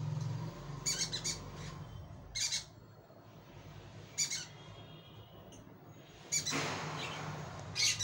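Short, sharp squawks from pet parrots, a yellow Indian ringneck and a cockatiel: three quick calls about a second in, then single calls spaced a second or two apart. A rushing noise lasting about a second and a half comes shortly before the end.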